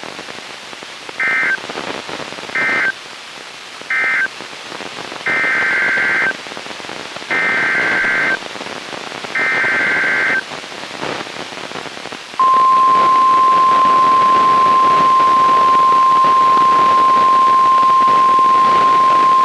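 Emergency Alert System data bursts over a steady radio hiss: three short two-pitch bursts, the end-of-message code closing the previous alert, then three longer bursts, the SAME header of the next alert. About twelve seconds in, the loud steady 1050 Hz warning alarm tone begins.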